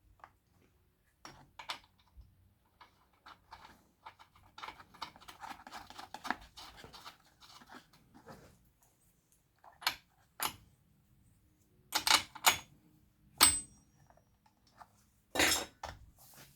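Clicks, knocks and light rattling of metal and plastic parts as a small two-stroke chainsaw is handled and worked on, with a stretch of soft scraping in the middle and a few sharper knocks near the end.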